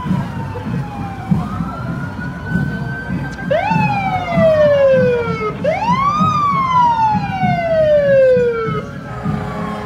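Emergency vehicle sirens wailing, more than one at once. In the middle two loud wails come a couple of seconds apart, each rising quickly and then falling slowly.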